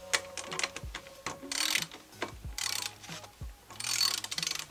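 Socket ratchet with a 10 mm socket clicking in about four short runs as it is swung back and forth, tightening the nut on a solar panel mounting-bracket bolt, with a few soft low knocks between the runs.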